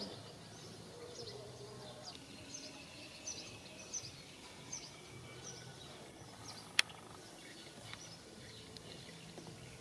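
Background noise with a steady low hum and faint, short, high chirps repeating every half second or so, plus one sharp click about seven seconds in.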